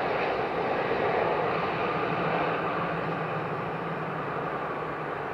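Airbus A350-1000's Rolls-Royce Trent XWB engines at low thrust as the jet flares just before touchdown: a steady rushing noise that slowly fades as the airliner moves away down the runway, with a faint low hum joining about two seconds in.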